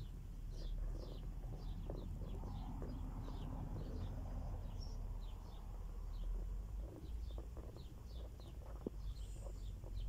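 A bird chirping over and over: short, high, falling chirps about two or three a second, over a steady low rumble.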